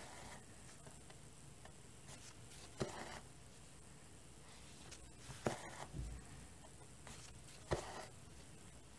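Cross-stitching by hand: four stitches, each a sharp tick as the needle pierces the fabric, then a short rasp as the thread is drawn through, about every two and a half seconds. A soft low bump a little after the third stitch.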